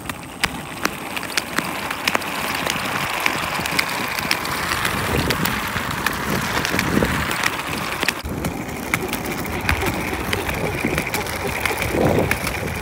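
Wicker basket moving over concrete and asphalt pavement: a steady gritty scraping noise dotted with many small clicks and ticks, its tone turning duller about eight seconds in.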